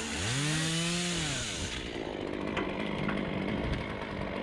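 Chainsaw engine revved up and let back down once in the first second and a half, then running at a lower, steady speed.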